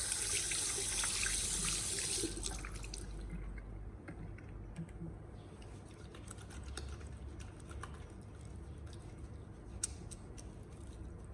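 Tap water running into a sink for hand washing, shut off abruptly about two seconds in, followed by faint scattered clicks and drips.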